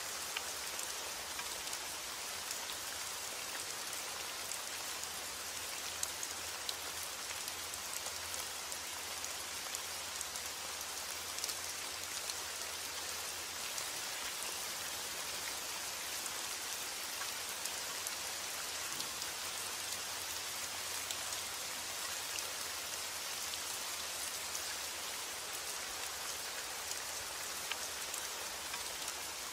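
Heavy rain falling steadily on window glass: an even hiss with scattered sharp ticks of single drops striking.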